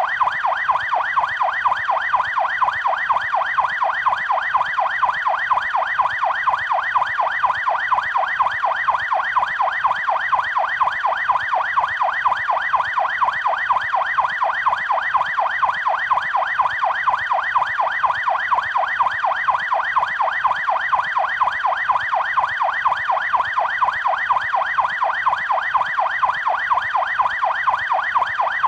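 Police siren on the fast yelp setting: a tone sweeping rapidly up and down over and over, steady and unbroken.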